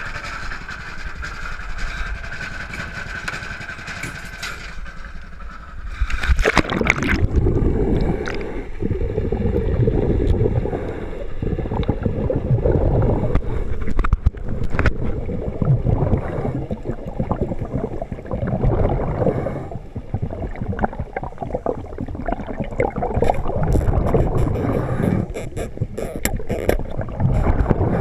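A boat under way on the water: a steady high whine, then from about six seconds in a loud, rough rush of water and wind noise.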